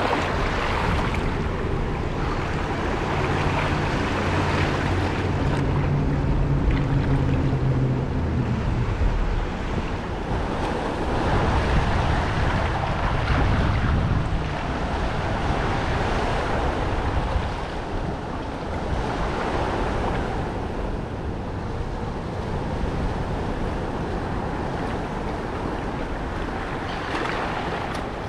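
Outdoor waterside noise: wind rushing on the microphone over moving water. A boat engine hums for a few seconds, from about three to nine seconds in.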